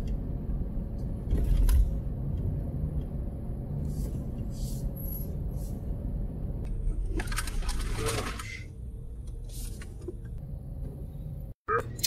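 Steady road and engine rumble inside a moving car, with a low thump a little under two seconds in and a brief rattling clatter about seven to eight seconds in.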